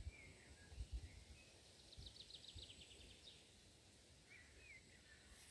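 Faint birdsong: a few short whistled calls and, in the middle, a quick trill of about ten notes, over a low uneven rumble.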